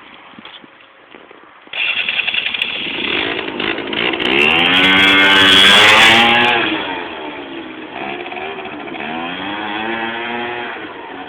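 Keeway Hurricane scooter's small two-stroke engine running, jumping to a louder run about two seconds in, then revved twice, the pitch rising and falling each time; the first rev is higher and louder than the second.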